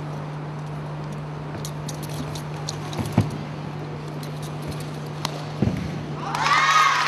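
Arena room tone with a steady low hum, broken by two sharp thuds from a wushu spear routine striking the carpeted competition floor, about three seconds in and again near six seconds. Near the end a high voice calls out, rising and falling.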